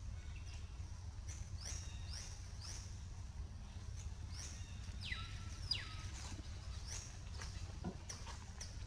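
Birds chirping: short high calls, each falling quickly in pitch, coming irregularly about once a second, over a low steady rumble.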